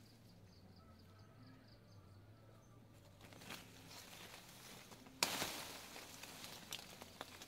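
Quiet outdoor orchard ambience with faint rapid high chirping in the first few seconds. About five seconds in comes a sudden burst of rustling as lychee leaves and branches brush against the camera, fading over about a second, with a few light clicks after.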